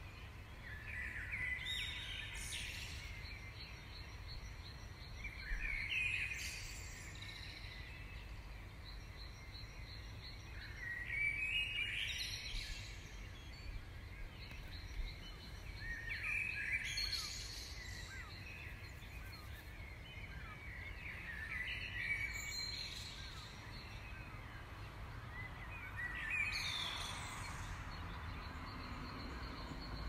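A songbird singing the same short phrase of quick notes over and over, about six times, each phrase lasting one to two seconds, over a low steady rumble.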